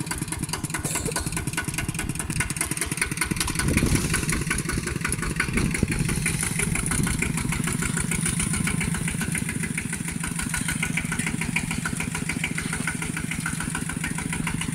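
Two-wheel walking tractor's engine running steadily in a rapid, even beat, working under load as it pulls a disc plough through dry soil.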